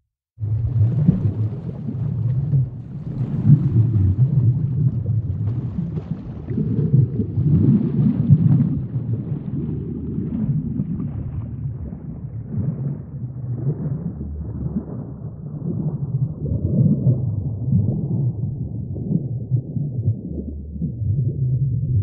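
Underwater ambience: a low, surging rumble of moving water with faint crackles, swelling and easing every few seconds. It starts abruptly after a brief break at the very start.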